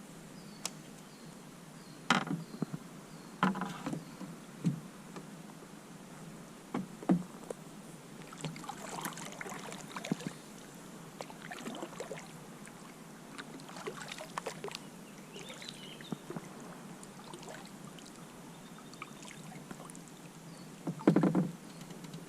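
Kayak on the water: paddle splashes and drips with several sharp knocks against the hull, the loudest near the end.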